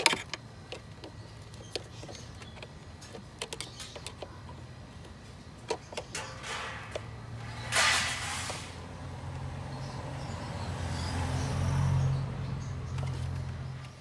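Small clicks and knocks of a screwdriver working at plastic connectors and fittings in a car's engine bay. A short rushing noise comes about eight seconds in. A low hum grows louder over the second half and cuts off at the end.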